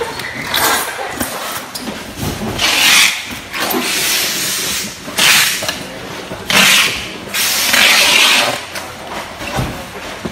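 Repeated bursts of hissing, each about half a second to a second long, coming every second or two.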